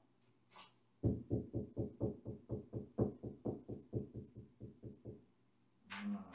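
A rapid, even run of about twenty knocks, roughly five a second, for about four seconds, then one louder hit near the end.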